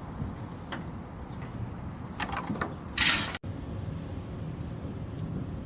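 Metal clinking and clattering, with a short loud burst of hissing noise about three seconds in.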